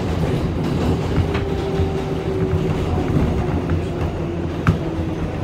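New York City Subway 7 train running, heard from inside the car: a steady low rumble with a faint whine that steps down in pitch, and a couple of sharp clicks from the wheels, the loudest near the end.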